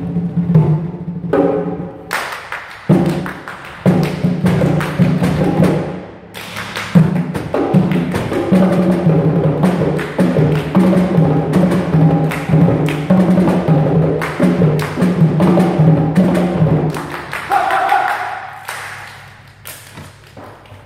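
A percussion ensemble plays a fast rhythmic piece built on hand claps, over a steady low pitched undertone. It thins out and gets quieter over the last few seconds, with a short rising tone near the end.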